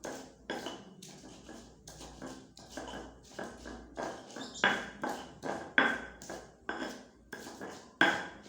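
Kitchen utensils knocking and clinking over and over, about two to three strikes a second, uneven in strength, with a few louder ringing hits.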